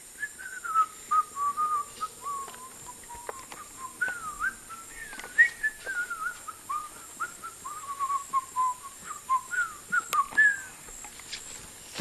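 A person whistling a wandering tune of short notes, stopping near the end, over a steady high insect drone.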